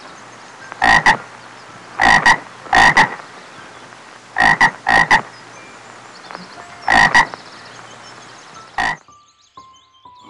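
Frog croaking: about a dozen short croaks, mostly in quick pairs, with pauses of a second or two between them.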